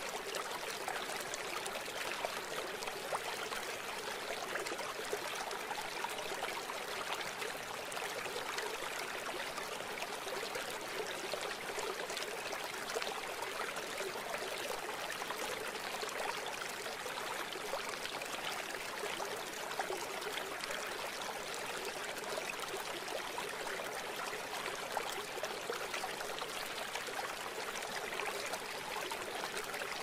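A river flowing over rocks: a steady, unbroken rush of water with little deep rumble.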